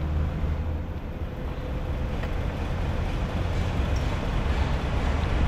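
Steady low rumble with a noisy hiss over it, like a vehicle on the move.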